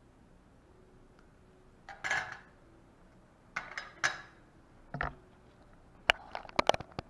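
Steel surgical instruments clinking against a stainless steel kidney dish as they are put down: a few separate clinks, then a quick run of sharp clicks near the end.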